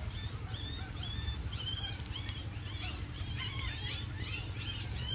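Newborn puppy squealing: many short, high-pitched arching cries, coming faster toward the end.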